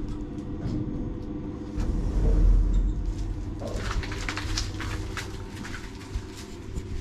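Passenger lift running with a steady low rumble that swells to its loudest about two seconds in. From about halfway comes a run of clicks and rattles as the lift's automatic sliding doors open.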